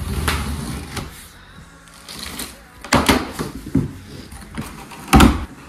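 Packing tape on a large cardboard box being slit with a box cutter, then the cardboard flaps pulled open with several sharp rustles and thumps, the loudest near the end.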